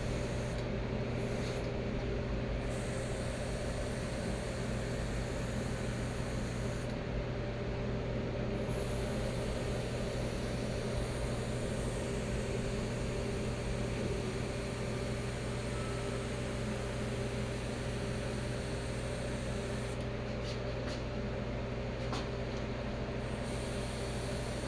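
Airbrush spraying chrome paint: a steady hiss of air and paint, with an air compressor humming underneath. The hiss breaks off briefly a few times, as the trigger is let go.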